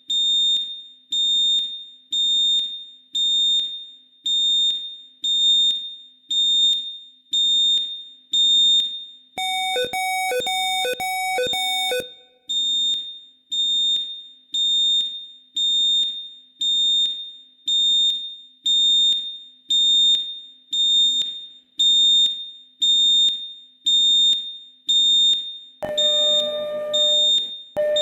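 Fire alarm sounder pulsing about once a second: each pulse is a high-pitched beep that fades away before the next. Around ten seconds in, a second, lower signal briefly overlaps in a quick run of pulses. Near the end a lower, rougher alarm tone sounds twice.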